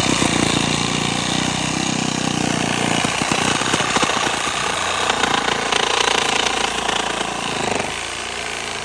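Electric reciprocating saw running at full speed, its blade sawing through a green, moss-covered log. It gets a little quieter near the end.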